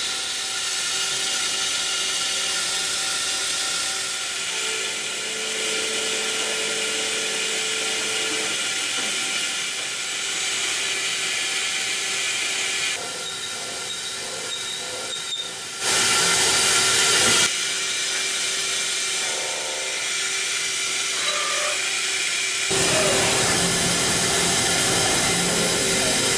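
Mazak Integrex i-100ST multi-tasking CNC lathe cutting a metal workpiece: a steady hiss of cutting and coolant with a few steady machine tones, changing abruptly between operations, from turning with the upper and lower turrets to outer-diameter grooving to 10 mm end milling in the last few seconds. A louder hiss lasts about a second and a half just past the middle.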